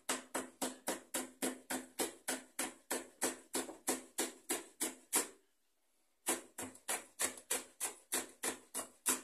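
Kitchen knife chopping a fresh red chili on a plastic cutting board: quick, even knocks of the blade on the board at about three to four a second. The chopping pauses for about a second a little past halfway, then carries on.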